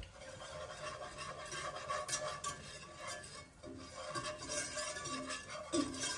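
Wire whisk stirring flour into melted butter in an enamel-lined pot, its metal loops scraping and ticking against the pan in quick, uneven strokes as a roux forms.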